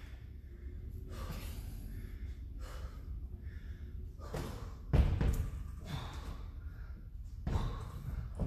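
A man breathing hard between exercises, with repeated heavy breaths, then a loud thud about five seconds in as he kicks up into a handstand against the wall.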